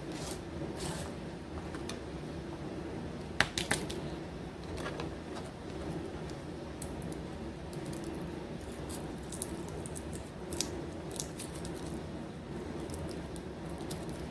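Garlic cloves being peeled by hand on a plastic cutting board: papery skins crackling and scattered small clicks as cloves are set down, the sharpest a few seconds in. A steady low hum runs underneath.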